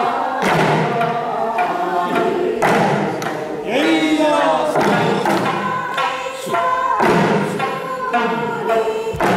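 Traditional Okinawan eisa: singers chanting a folk song into a microphone while the dancers strike small paranku hand drums, about one beat a second. A sliding group shout comes about four seconds in.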